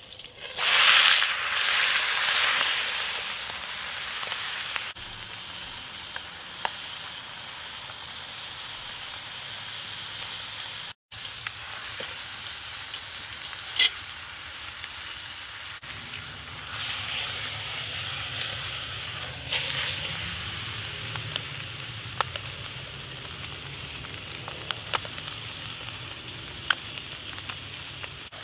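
Whole chicken searing in hot canola oil in a cast-iron Dutch oven: a loud sizzle as it goes into the oil about a second in, then steady frying with scattered sharp pops.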